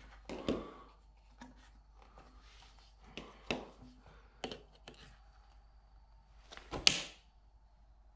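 Handling knocks and clicks from the side opening of an epoxy primer container being worked open by hand and with pliers: a few scattered light knocks, the loudest one about seven seconds in.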